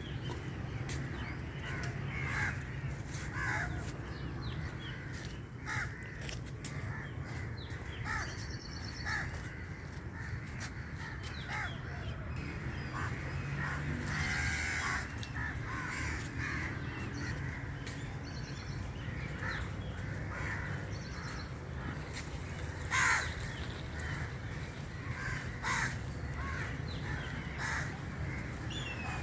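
Birds calling now and then in short harsh calls, one louder call standing out about three-quarters of the way through, over a steady low background rumble.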